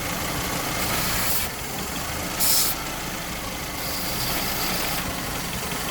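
2001 Saturn engine idling roughly with a misfire while aerosol brake cleaner is sprayed around the base of the intake in three hissing bursts, the second the loudest. The idle changes as the cleaner is drawn in through a vacuum leak, which the owner puts down to a ruptured paper intake gasket, probably at cylinder 1.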